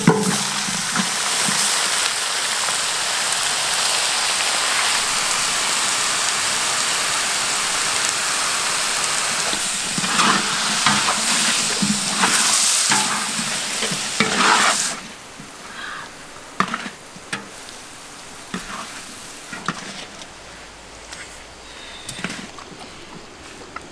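Catfish and mushrooms sizzling loudly in a hot metal wok, with a wooden spatula scraping and stirring through them. About fifteen seconds in the sizzle drops away abruptly, leaving a much quieter background with occasional spatula scrapes and clicks.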